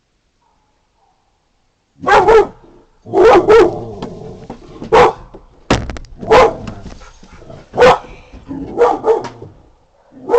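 A puppy barking repeatedly, about nine sharp barks starting about two seconds in, with a single sharp knock among them a little past halfway.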